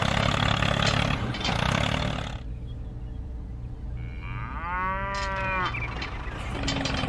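A cow moos once, a single call of about a second that rises and falls in pitch, about four and a half seconds in. Before it, for the first couple of seconds, a small engine runs.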